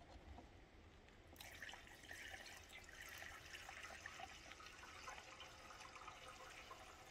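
Near silence, with a faint steady hiss that starts about a second and a half in.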